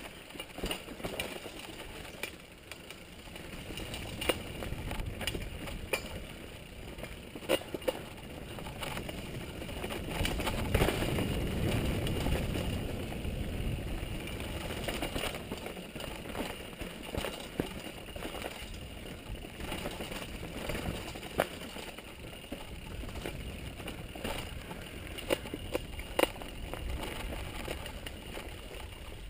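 Mountain bike riding down a dirt and stony trail: tyres crunching over gravel and roots, with frequent sharp clicks and rattles from the bike over bumps. A louder low rumble swells for a few seconds around the middle.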